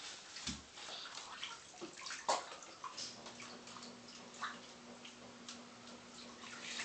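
Faint bathwater sounds in a tub: small splashes, drips and sloshes as a child moves in the water, one somewhat louder splash a little past two seconds in. A faint steady hum comes in about three seconds in.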